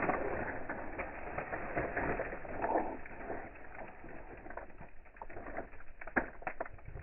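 Wood campfire crackling, with many small pops and one sharp crack about six seconds in.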